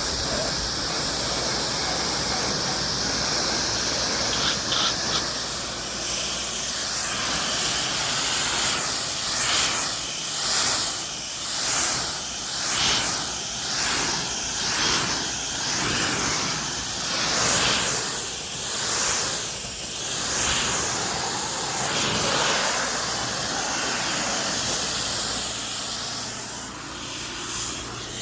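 Pressure washer spraying water, a loud steady hiss. For much of the time it swells and fades about once a second as the spray is swept back and forth across the surface.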